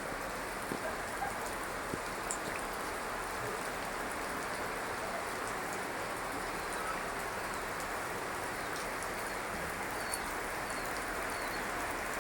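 Heavy rain falling steadily, a dense even hiss of drops on water and ground with a few faint separate drop ticks.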